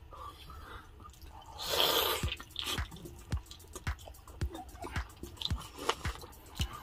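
Close-up wet chewing and lip-smacking of people eating sticky braised pork hock, a run of sharp mouth clicks with a louder wet bite about two seconds in.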